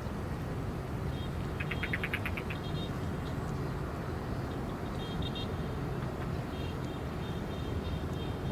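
Steady low engine rumble from distant vessels and traffic. About two seconds in there is a brief rapid high chirping trill, and faint high chirps come later.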